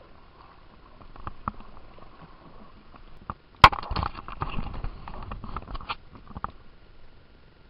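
Handling noise close to the microphone of a handheld camera in a canoe: a few faint knocks, then a sharp click about three and a half seconds in, followed by nearly three seconds of dense bumping and rubbing that stops abruptly.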